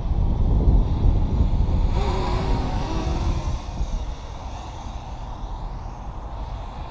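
Racing quadcopter's motors whining as it passes, the pitch shifting up and down, loudest about two to three seconds in, over wind rumbling on the microphone.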